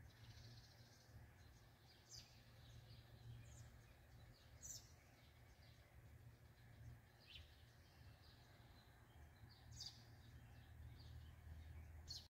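Near silence: faint outdoor ambience with a steady low hum and a few short, faint high chirps of birds scattered through.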